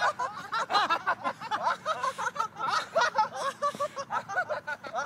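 Several people laughing hard together in rapid, unbroken ha-ha bursts, overlapping voices: deliberate laughter-yoga laughter.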